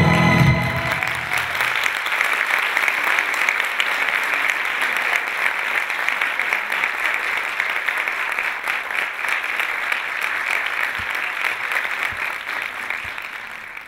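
Audience applauding as the music ends about half a second in; the clapping fades out near the end.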